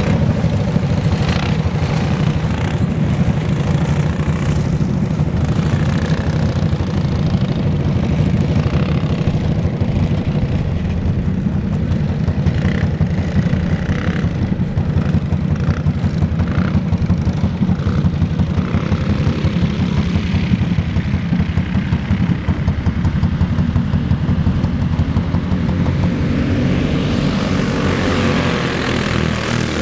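A pack of small race karts with single-cylinder clone engines running together, a continuous engine buzz; it swells near the end as the pack comes by close.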